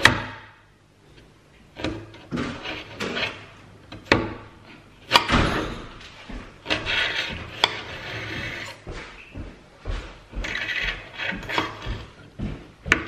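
Serrated kitchen knife slicing a radish held on a spiked vegetable-holding board: repeated sharp knocks of the blade on the cutting board, with rasping sawing strokes in between.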